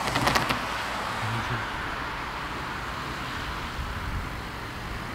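A van and a car driving past close by on the road. Their tyre and engine noise is loudest in the first moments, then fades to a steady outdoor hiss.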